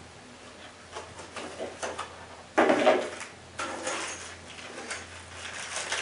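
Handling of unboxed items on a table: scattered rustles and light knocks, with a sudden louder bump or crinkle about two and a half seconds in and another about a second later.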